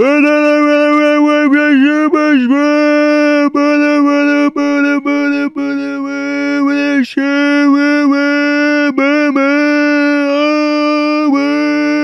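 Goofy meme screaming: one voice held on a single steady note, with short pitch wobbles and several brief breaks where it drops out and catches again.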